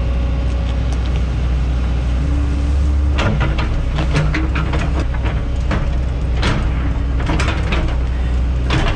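Hyundai 140 excavator's diesel engine running steadily under load while digging out a stump in frozen ground. From about three seconds in, repeated clanks and knocks.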